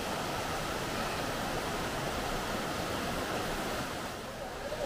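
Steady rush of flowing river water, an even hiss that eases slightly near the end.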